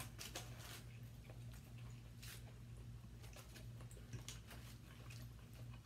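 Quiet eating sounds: scattered small clicks and smacks from forks picking at smoked turkey leg meat on foil-lined plates and from chewing, over a steady low hum.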